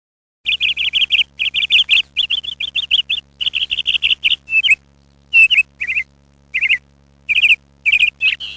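Bird chirping in quick runs of high notes, several groups with short pauses between, starting suddenly about half a second in.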